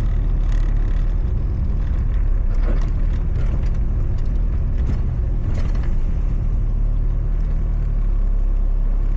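Turbocharged Toyota Supra driving, heard from inside the car: a steady engine drone with road noise and scattered clicks and rattles.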